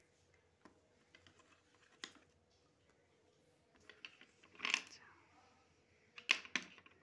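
Handling noise as a phone camera is moved over a wooden table: scattered light clicks, a brief rustle a little before five seconds in, and two sharper knocks a little after six seconds.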